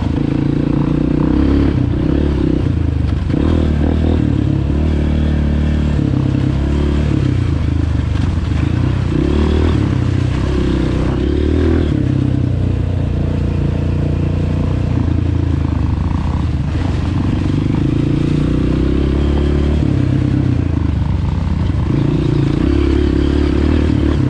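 Dirt bike engine running under a rider, its pitch rising and falling as the throttle is worked, with rattling and scraping from the bike over the ground.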